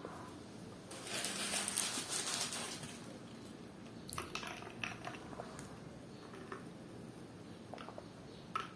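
Close-miked eating of a fried chicken-and-catupiry coxinha: a crackling burst lasting about two seconds a second in, then scattered wet mouth clicks while chewing, with one sharper click near the end.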